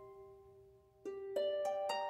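Background music of plucked-string notes: a held chord rings out and fades almost to silence, then a new run of plucked notes starts about halfway through.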